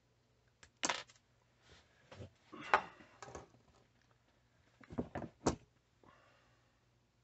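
Small metal parts handled on a wooden workbench: a brass shotgun case, a steel tube and a tin of percussion caps picked up and set down, giving short clicks and light knocks in three bunches, about a second in, around two to three and a half seconds in, and around five seconds in.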